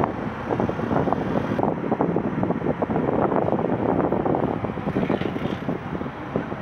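Inside a moving car: steady road and engine noise with wind buffeting the microphone.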